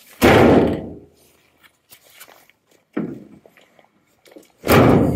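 Citroen Relay van rear doors being swung shut: two loud heavy thuds about four and a half seconds apart, with a lighter knock between them.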